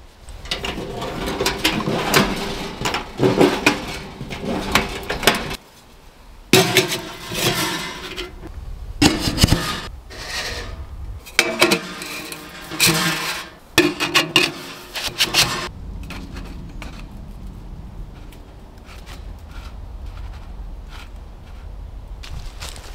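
Metal stove flue pipe sections being slid and twisted together by hand, with scraping and clanking and a ringing edge in the metal. Quieter handling follows for the last several seconds.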